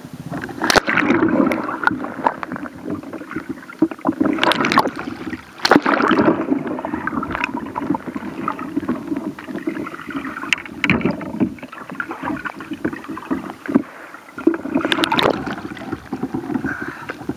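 Water splashing, rushing and gurgling as a sea kayak capsizes and is rolled back up in an Eskimo roll, heard through the deck-mounted waterproof camera as it goes under and surfaces. A sudden loud splash comes about a second in, with several more sharp surges of splashing later.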